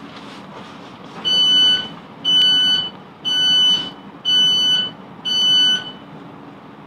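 Class 707 train's door warning beeps: five loud, even, high-pitched beeps about a second apart, over the steady hum of the train.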